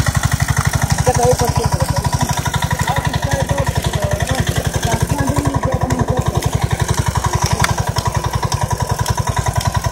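Eight-row rice transplanter's small engine running with a fast, even chugging as the machine moves along planting seedlings; it grows louder right at the start.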